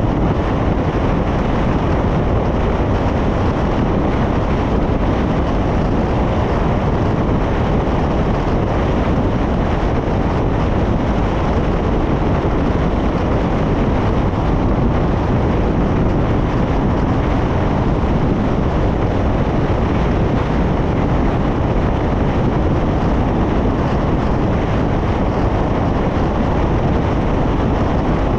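Steady tyre and wind noise from a car cruising at highway speed on concrete pavement.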